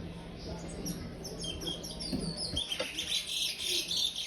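Young chestnut-bellied seed finch (curió), still in brown juvenile plumage, singing the 'praia' song type: a run of quick chirped notes that grows fuller and louder in the second half.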